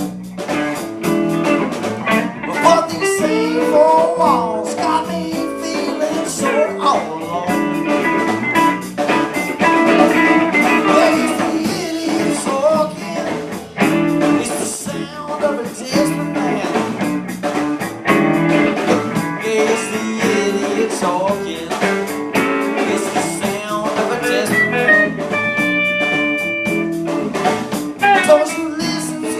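Blues song on guitar in an instrumental passage without sung lyrics, the lead line full of bending notes.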